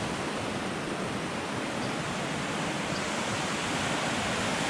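Steady rushing noise of fast-flowing creek water.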